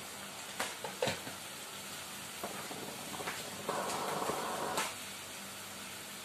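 Chicken adobo in soy-vinegar sauce sizzling in a wok, a steady hiss with a few sharp clicks about a second in and a louder rush for about a second near the four-second mark.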